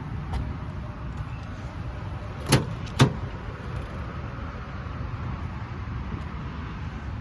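Two sharp clunks about half a second apart, the second one louder, over a steady low rumble.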